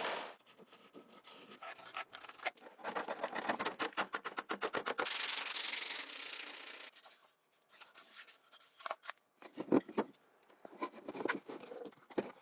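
Abrasive rubbing on a surface by hand: a fast run of back-and-forth strokes, then a steadier scraping rub, followed by a few separate knocks near the end.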